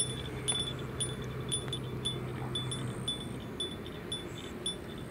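A small metal bell tinkling in a run of short high pings, two to three a second, slowly getting fainter, over a low steady hum that stops about three seconds in.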